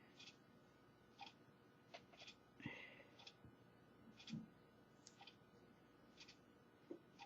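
Faint, scattered small clicks and one short scrape as a flat precision screwdriver pries at a smartphone's parts.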